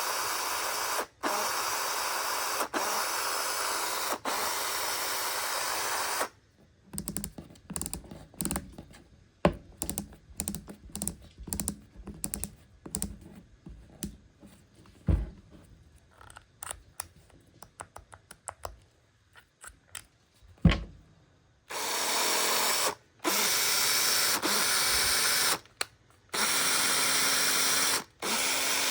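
Makita DF030D cordless driver drill's motor running free in spurts, with the trigger released briefly between runs. The drill is sold as having an abnormal running noise. In the middle stretch the motor stops and irregular clicks and knocks are heard instead.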